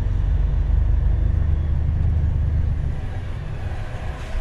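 Truck's diesel engine running as it drives slowly, heard from inside the cab: a steady low drone that eases off about three seconds in.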